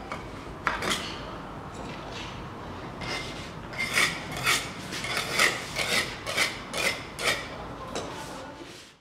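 Small wire brush scrubbing along the joints between floor tiles, clearing out mortar and dirt before grouting. Short rasping scrapes come about twice a second, starting about three seconds in.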